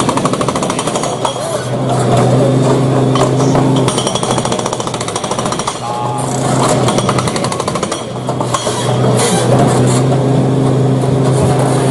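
Hydraulic breaker on a Kubota mini excavator hammering concrete in rapid, continuous blows, with a steady low hum underneath.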